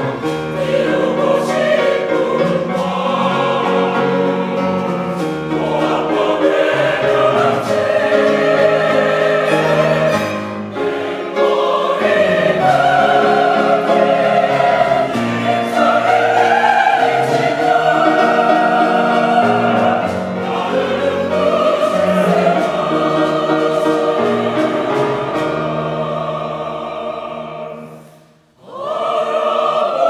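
Mixed choir of men and women singing a Korean choral song in full, sustained chords, with string and piano accompaniment from a small ensemble. Near the end the sound breaks off abruptly for a moment, then the choir comes back in on the next phrase.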